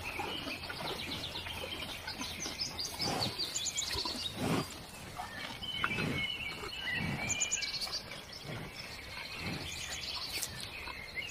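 Birds chirping in a countryside ambience, with soft low thuds now and then.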